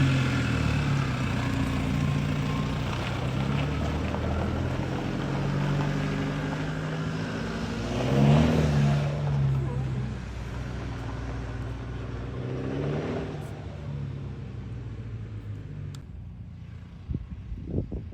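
2013 Holden RG Colorado's engine running. Its revs rise and fall briefly about eight seconds in, and the sound fades near the end.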